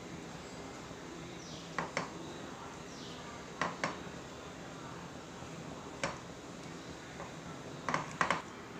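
Silicone spatula stirring warm whipping cream and butter in a nonstick frying pan, with a few sharp taps of the spatula against the pan in pairs about two and four seconds in, once at six seconds, and a quick cluster near the end, over a steady low hiss.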